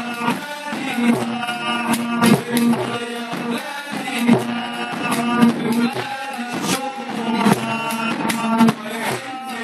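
Two ouds plucked together, accompanying men singing a song.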